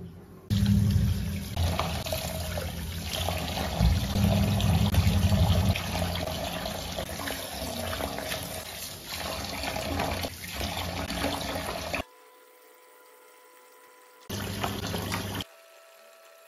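Tap water running into a plastic bowl in a stainless steel sink, splashing as fish are rubbed and rinsed by hand in it. The sound cuts off suddenly about twelve seconds in, comes back briefly, and stops again.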